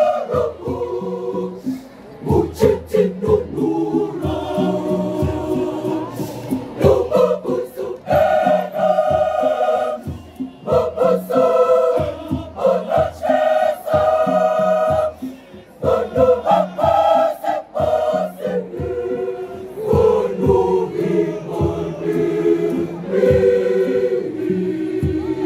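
Large mixed choir singing a sacred song in several-part harmony, with a steady beat underneath.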